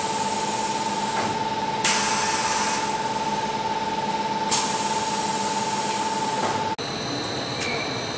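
Compound air-bubble film machine running: a steady whine over a hiss of air, with the hiss swelling sharply twice, about two and four and a half seconds in. Near the end the sound cuts to a different steady machine noise with a high-pitched tone.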